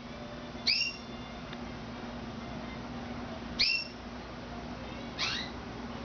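Canary calling: three short, sharp chirps, about a second in, near the middle and near the end, over a steady low hum.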